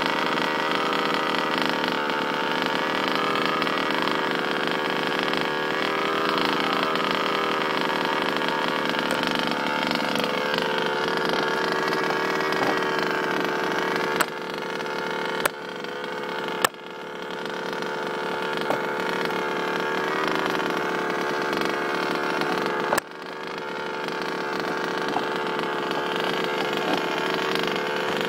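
Small two-stroke petrol engine of an HPI Baja 5b SS 1/5-scale RC buggy running steadily, its pitch wavering a little. A few sharp clicks come through the middle, with the loudest about two thirds of the way in.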